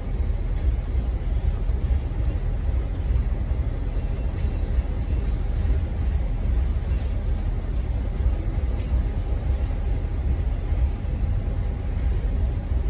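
Freight train cars rolling slowly through the rail yard: a steady low rumble with a faint steady thin tone above it.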